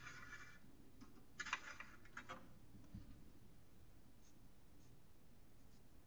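Paintbrush scratching on watercolour paper: three short, faint swishes in the first two and a half seconds, then near silence.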